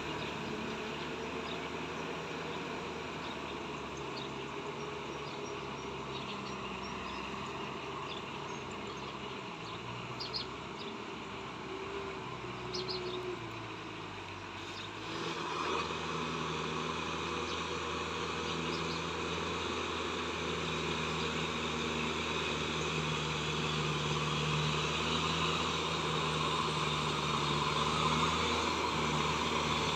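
Kubota tractor's diesel engine working through a flooded, muddy paddy, steady and fairly distant at first. About halfway it becomes louder and closer, running steadily under load as the tractor churns through deep mud.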